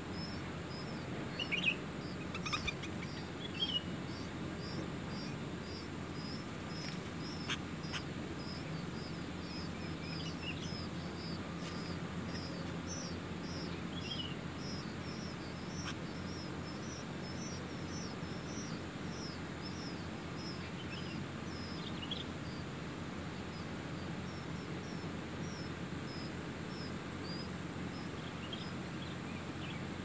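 Bulbul nestlings begging: a fast, steady run of thin, high chirps, several a second, that dies away near the end. A few lower, separate calls are scattered through, over a steady low background hiss.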